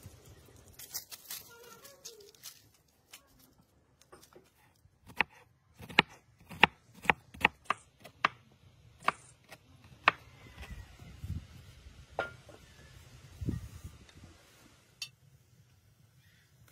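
Knife chopping on a cutting board: a run of sharp strokes about two a second through the middle, then a few scattered knocks and dull thuds.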